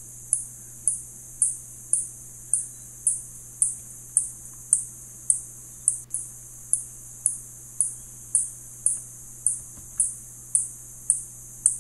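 Spotted bat echolocation calls: short, high-pitched chirps repeating evenly at about two a second.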